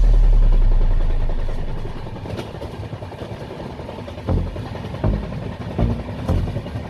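A deep bass note from background music fades out over the first two seconds. It gives way to the rumble of a moving vehicle, with low thumps recurring every second or less near the end.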